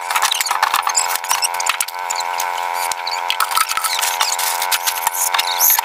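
Chickens chirping and peeping inside a small wooden coop, with scattered knocks and clatter. A steady hum runs underneath.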